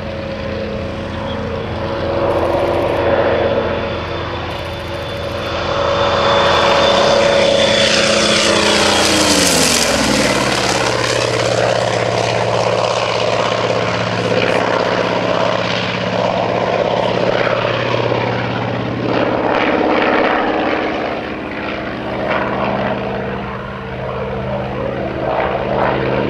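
Douglas AD-5W Skyraider's big radial engine and propeller running in a low flyby, growing louder as it approaches, then dropping in pitch about ten seconds in as it passes overhead and runs on past.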